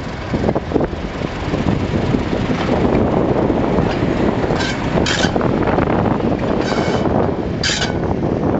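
Class 31 diesel-electric locomotive running past at low speed, its engine and running gear making a loud, steady mechanical din. Four short, high metallic squeals from the wheels break through a little after halfway.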